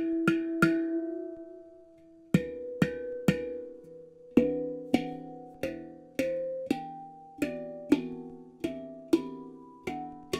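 Handpan of nitrided steel tuned to E minor (E Shahmaran 9, the Kurd scale), played with the fingers: single struck notes that each ring on. Three quick notes open, then after a short pause a steady run of notes comes about two a second, climbing in pitch toward the end.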